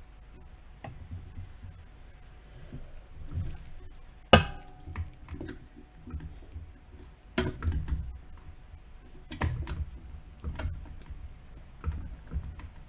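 Scattered knocks and clanks of metal parts and tools being handled, with one sharp metallic clank about four seconds in that rings briefly, and two more heavy knocks a few seconds later.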